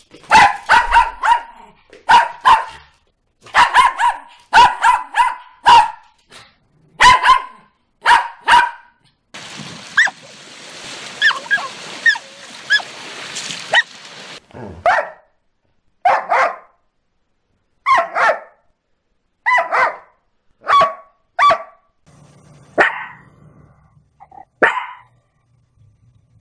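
Dogs barking in a run of short clips. First come quick groups of two or three sharp barks. A few seconds of surf washing over a pebble beach follow, with a few high yips. Then come single barks, roughly one a second, from several dogs.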